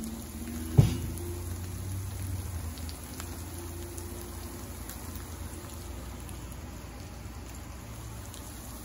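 Breaded mojarra fillets sizzling steadily as they fry in oil in a pan, with one sharp knock about a second in.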